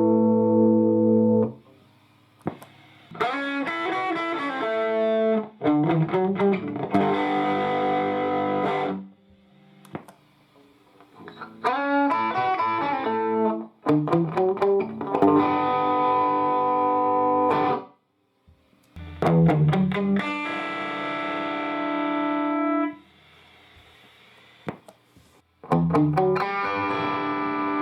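Electric guitar played through a 12-inch combo guitar amplifier in several short phrases. Each phrase is a quick run of picked notes settling into a held, ringing chord, with short pauses between phrases.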